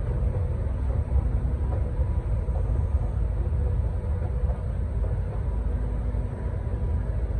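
Schindler 9300 escalator running while being ridden: a steady low rumble with a faint, even hum.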